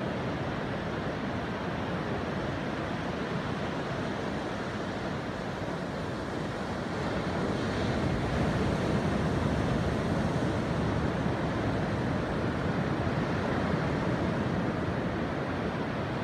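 Ocean surf breaking and washing steadily, mixed with wind buffeting the microphone; the wash swells a little louder about halfway through.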